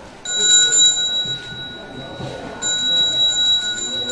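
Small hand bell rung continuously: a clear, steady ringing that starts about a quarter second in. Its higher ring fades for about a second midway, then comes back.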